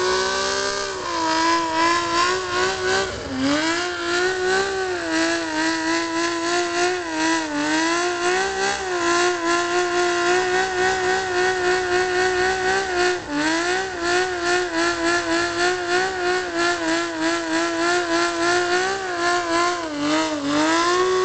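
Honda CBX motorcycle doing a burnout: the engine is held at high revs while the rear tyre spins on the pavement. The revs dip briefly and climb back about four times.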